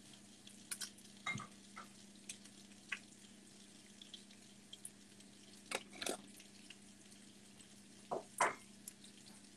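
Cast-iron pan of chicken and zucchini frying on the stove, sizzling faintly with scattered small pops and clicks over a steady low hum.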